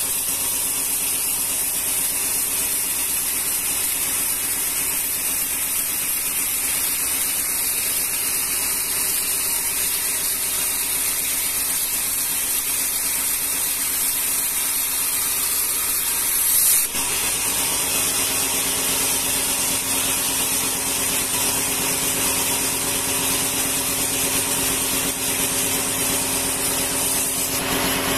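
Vertical band sawmill ripping rengas wood into boards. The blade hisses steadily through the timber over the hum of the machine's motor and drive.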